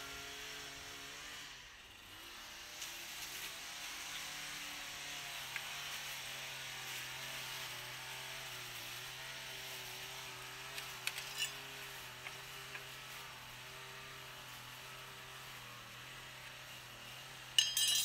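Small engine droning steadily, most likely the lawn mower cutting the grass nearby, with its pitch wavering slightly. A few light clicks and taps as wood and tools are handled, the sharpest just before the end.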